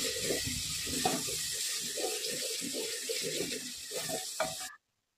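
Spiced masala loosened with a little water, sizzling and bubbling in an aluminium pressure cooker while a wooden spatula stirs and scrapes through it. The sound cuts off abruptly near the end.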